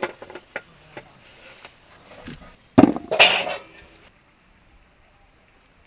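A knife cutting through a crisp apple with a few sharp clicks, then a loud thump and a clatter about three seconds in as cut apple pieces drop into an aluminium pot.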